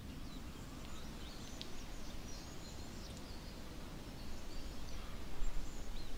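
Outdoor ambience: scattered short bird chirps over a steady low rumble and hiss.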